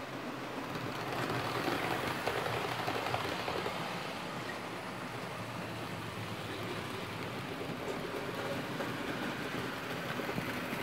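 OO gauge model train of 14-ton tank wagons running along the track, its small wheels clattering steadily over the rails and joints along with the model locomotive's motor. It is a little louder about one to three and a half seconds in.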